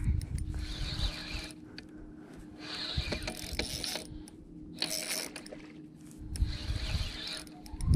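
Spinning reel being cranked in about five short spurts as a hooked fish is reeled in, its gears running with each turn of the handle, over a steady low hum.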